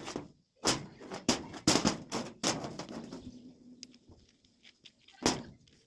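Steel parts and tools knocking and clanking while being handled: about five sharp knocks in the first three seconds, then a single sharp clank about five seconds in.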